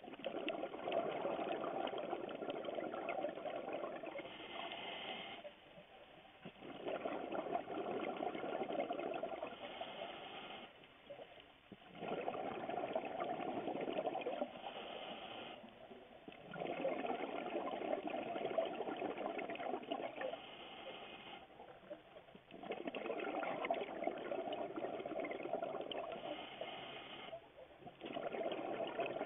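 Scuba diver breathing through a regulator, heard underwater through the camera housing: a breath about every five and a half seconds, each a long rush of exhaled bubbles followed by a short quiet gap.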